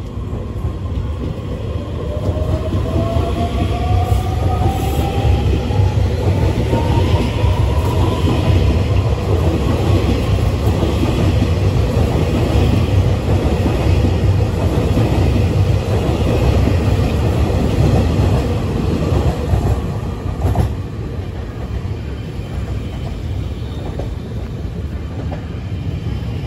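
Taiwan Railway EMU3000 electric multiple unit pulling out and running past close by: its traction motors give a rising whine as it accelerates over a heavy rumble and clatter of wheels on rail. About twenty seconds in the sound cuts to a quieter rumble of passenger coaches rolling along the platform.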